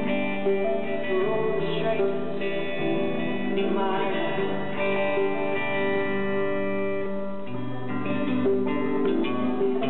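Live band music: an electric guitar and a banjo played together, with singing over them.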